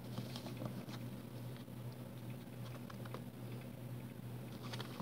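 Faint, scattered light taps and rustles of a book being handled and turned in the hands, over a steady low hum.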